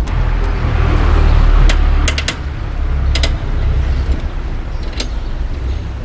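Sharp metallic clicks from tools working at the rear wheel hub of an electric cargo bike while the wheel is being removed: a quick cluster a little after two seconds in, another around three seconds, and a single click about five seconds in. They sit over a low rumble that is loudest in the first two seconds.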